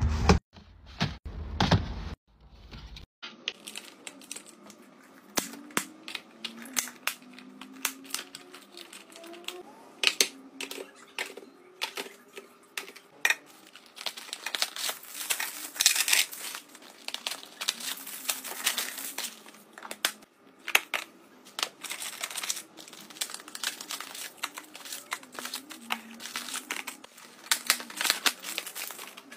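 Plastic food containers knocking and sliding into a freezer drawer for the first few seconds. After a cut come packaging handling sounds: crinkling and tearing with many light clicks and taps, as boxes and wrapped snack packets are opened and dropped into a clear plastic bin.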